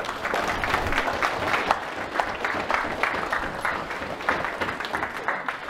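An assembly audience of students applauding, many hands clapping together, dying away at the end.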